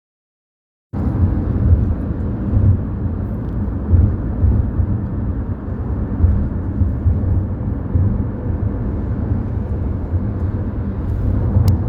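Steady low rumble of a vehicle on the road, engine and road noise, starting suddenly about a second in.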